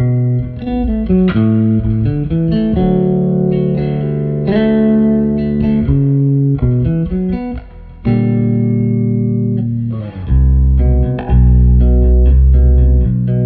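Ibanez electric bass played solo in an ambient, melodic style, with picked notes and chords ringing and sustaining over one another. The sound fades briefly just before eight seconds in, then deep low notes come in about ten seconds in and the playing gets louder.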